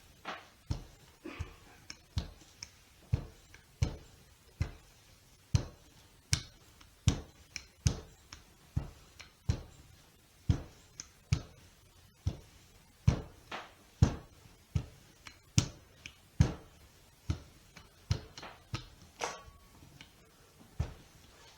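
Rolling pin knocking on the counter while pie dough is rolled out: a steady run of dull thuds, about one and a third a second.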